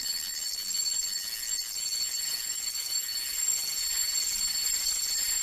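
Steady high-pitched buzzing hiss with two constant whining tones, unchanging throughout.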